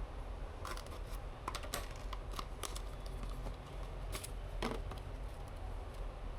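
Scattered light clicks and taps of computer parts and packaging being handled during a PC build, over a steady low hum.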